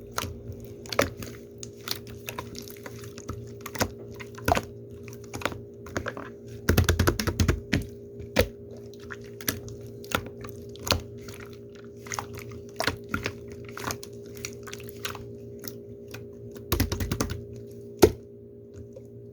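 Irregular light clicks and taps, typing-like, with two quick flurries of them about 7 and 17 seconds in, over a steady low hum.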